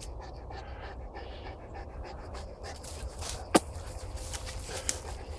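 Neapolitan mastiffs panting as they walk, with faint crackles of leaf litter underfoot. A single sharp click about halfway through.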